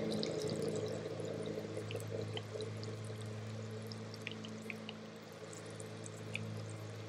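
A steady low machine hum of several tones, slowly fading, over a soft hiss with faint scattered tiny ticks, as the electrolyte of a lead-acid car battery fizzes slightly under charge from a DC stick welder. The bubbling is the sign that the sulfated cell is starting to take a charge.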